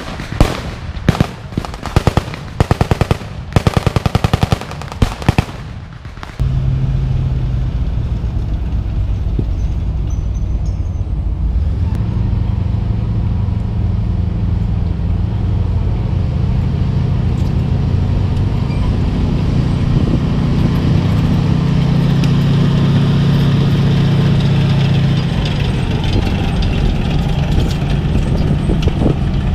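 Several bursts of rapid automatic gunfire. About six seconds in, the sound cuts abruptly to the steady, loud low drone of a heavy military vehicle's engine running, which grows somewhat louder midway.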